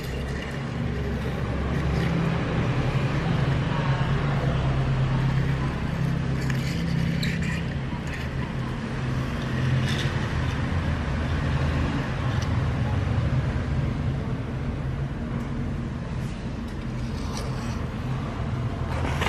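A steady low rumble of motor traffic or a running engine, with a few faint light clicks.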